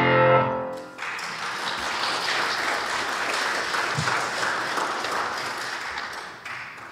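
A singer's last held note with accompaniment dies away. About a second in, a church congregation starts applauding, and the applause fades out near the end.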